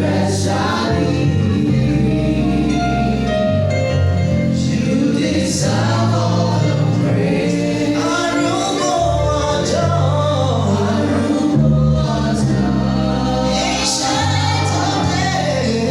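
Group of singers performing a gospel song with band accompaniment, low bass notes shifting every second or two under the sung melody.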